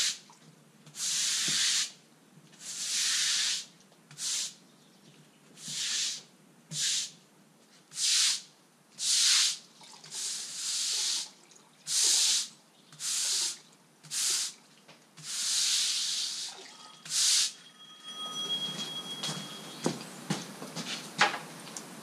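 Stiff-bristled broom dragged in repeated strokes across wet concrete, each stroke a rough hiss lasting about half a second to a second, some fourteen strokes in all, brushing a non-slip finish into the surface. About eighteen seconds in the brushing stops and gives way to faint clicks and a couple of thin steady tones.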